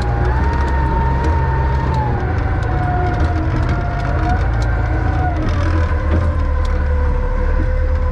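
Wheel loader's diesel engine running under load: a steady low rumble with a whine that rises and falls in pitch, and faint scattered clicks on top.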